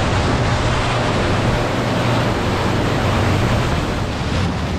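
Wind buffeting the microphone and water rushing past a boat under way, with a low, steady engine hum underneath.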